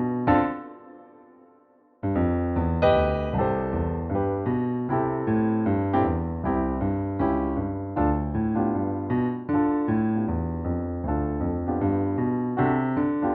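Keyboard music with an electric-piano sound. A chord dies away over the first couple of seconds, then the playing starts again suddenly and runs on as a steady stream of notes.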